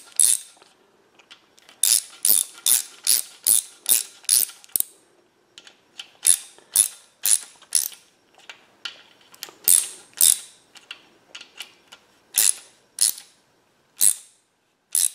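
Hand ratchet clicking in short runs of quick clicks, about three to four a second, with pauses between, as it snugs down connecting-rod cap nuts evenly before they are torqued.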